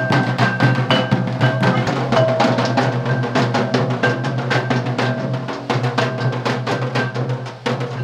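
Drum-led music accompanying a tribal group dance: quick, even drumbeats with held melodic tones over them.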